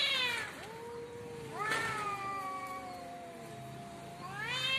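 Two cats yowling at each other in a territorial standoff: long, drawn-out wavering howls that rise and fall in pitch, overlapping at times, swelling loudest near the start, about a second and a half in, and near the end. This is the threat display that comes before a cat fight.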